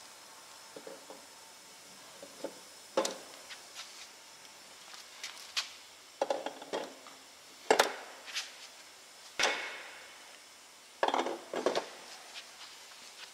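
A Scania 16-litre V8's cast cylinder head being set onto the engine block over its locating guides: a run of irregular metal knocks, clanks and short scrapes as it is shifted into place, the loudest a little before the middle and near the end.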